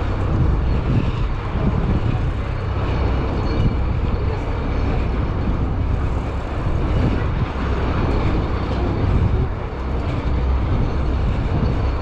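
Wind buffeting the microphone on a moving bike: a loud, steady rushing rumble that swells and dips.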